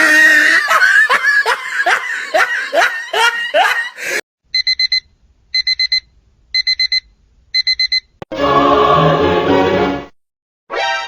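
A string of separate short sound effects: about four seconds of fast repeated musical notes, then a digital alarm clock beeping in four quick bursts of four beeps, about a second apart. A short music clip follows, and another brief fragment starts near the end.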